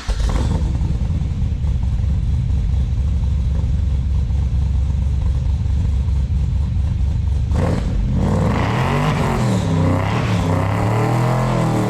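Supercharged LS7 V8 in a VF Commodore running loud with a steady deep rumble, then revving up and down repeatedly from about 8 seconds in.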